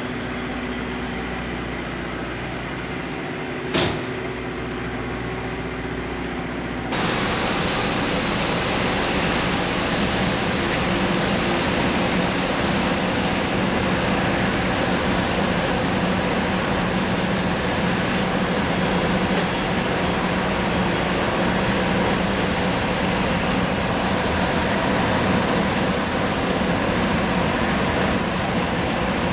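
Jetfoil's gas turbines running with a high whine that climbs slowly in pitch over a steady rush of noise; the sound jumps louder suddenly about seven seconds in. A single sharp knock about four seconds in.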